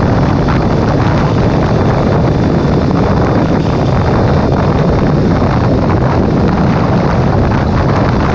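Steady wind rush buffeting the microphone of a camera on a sport motorcycle riding at road speed, with the bike's engine and road noise running beneath.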